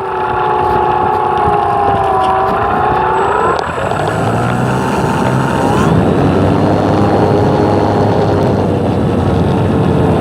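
Small propeller aircraft's engine and prop whining, its pitch slowly dipping and rising as it flies. The whine is strongest in the first few seconds and fainter after about four seconds, over steady wind noise on the microphone.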